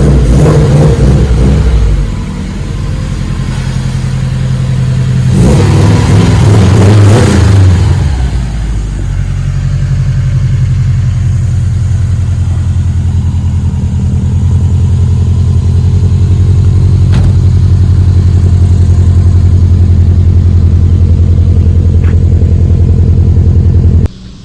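Subaru WRX engine running loudly, with a brief rev-up about five seconds in before settling back to a steady run. The sound cuts off abruptly near the end.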